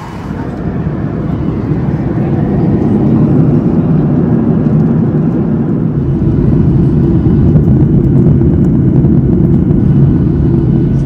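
Jet airliner cabin noise by the wing: a steady, loud, low engine and airflow rumble that swells over the first few seconds and then holds.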